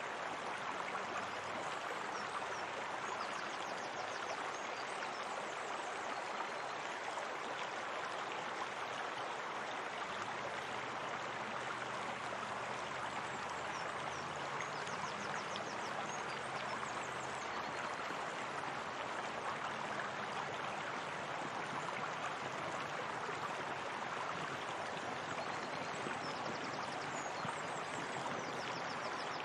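Steady rush of flowing water, like a small waterfall or stream, with faint quick high trills now and then.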